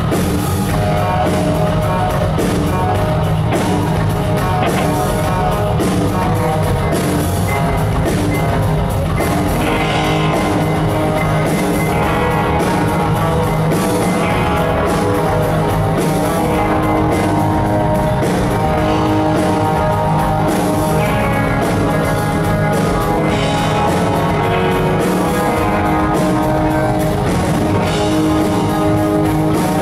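Live rock band playing loudly: a double-neck electric guitar lead with held, sustained notes over a drum kit.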